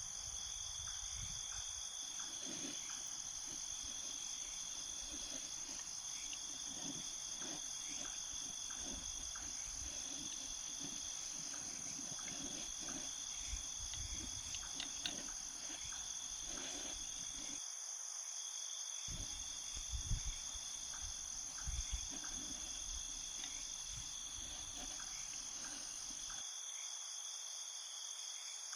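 Steady, high-pitched chirring like a chorus of crickets, with scattered low thumps and rumble underneath that cut out briefly about two-thirds of the way through and again near the end.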